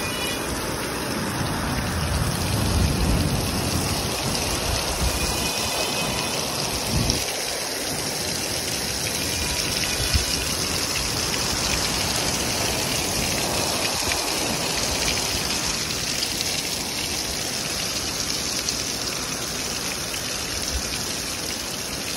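Torrential rain pouring down in a severe thunderstorm, a dense steady hiss. Gusting wind adds a low rumble, heaviest in the first few seconds.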